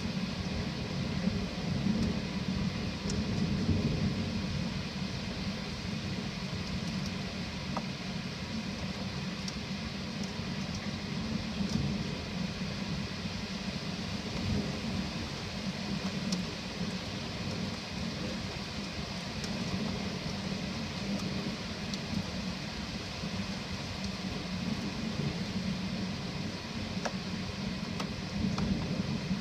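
Steady rain with a low rumble of thunder underneath that swells and fades, loudest a few seconds in, and the odd sharp drip.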